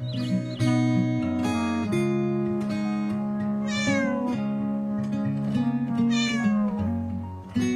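Background music with two cat meows over it, each falling in pitch, about four seconds and about six seconds in.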